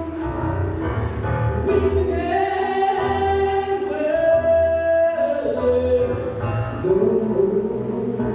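A spiritual sung over accompaniment, the voice holding long notes through the middle.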